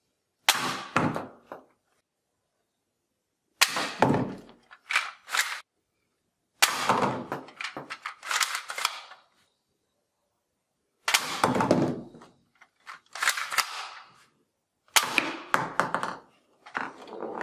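Plastic toy guns handled and clicked, making repeated sharp plastic clacks, rattles and bangs in bursts every few seconds, with toy bowling pins clattering as they are knocked over.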